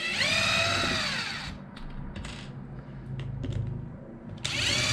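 Power drill-driver backing out bolts: its motor whines up and winds down once at the start and again near the end, with a few small clicks of handling in between.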